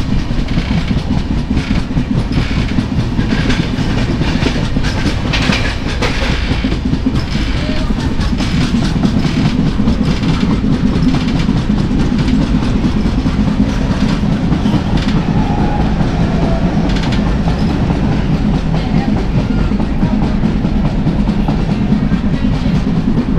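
Passenger express train running, heard from on board: a steady low rumble with the wheels clattering over the rail joints.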